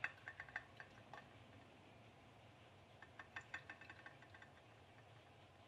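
Faint clusters of quick, sharp clicks, several a second, from a tea-light-powered pop-pop boat made from an aluminium mackerel tin with a coiled aluminium tube boiler. The boat is running in a glass bowl of water, and the clicks fall quiet for a second or two in between.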